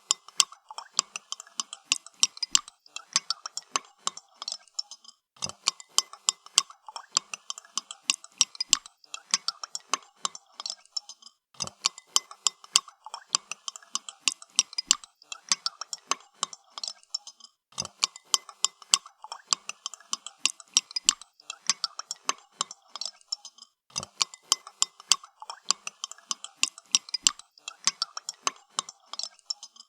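Spoon stirring coffee in a cup, clinking rapidly against the sides in runs of about six seconds, each followed by a brief pause.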